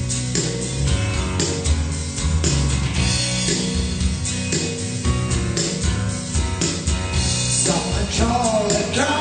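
Rock song intro played on guitar, bass and drums with a steady beat; a man's singing voice comes in near the end.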